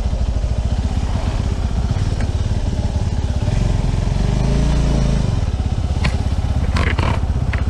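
Motorcycle engine running at low speed, its firing pulses plain, with the revs rising and falling once about halfway through. A few sharp clicks come near the end.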